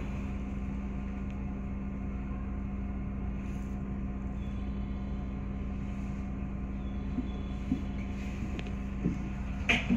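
Running noise inside a JR 221 series electric train: a steady low rumble with a constant hum. A few light knocks from the wheels and rails come near the end.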